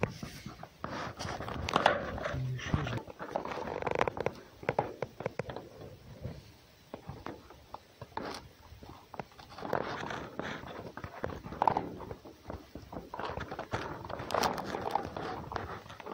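Irregular rustling and scuffing in straw bedding as a fox moves about, with scattered sharp clicks and soft knocks.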